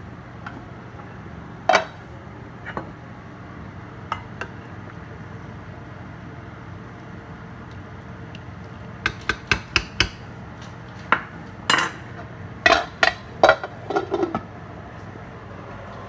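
A metal ladle clinking against the ceramic crock of a slow cooker while scooping beans: a few scattered clinks early on, then a quick run of sharp knocks and clinks from about nine to fourteen seconds in, over a low steady hum.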